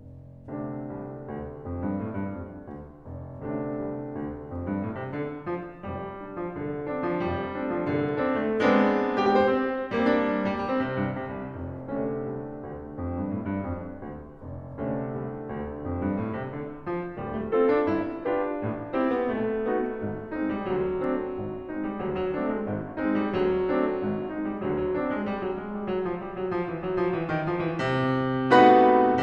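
Solo piano music playing a steady run of notes and chords, with a loud chord struck near the end.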